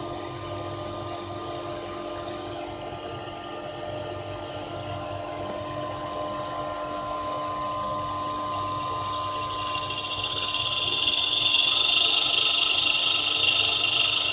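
Electric motor run from a variable-frequency drive, giving a steady machine hum with a high whine that grows louder about ten seconds in.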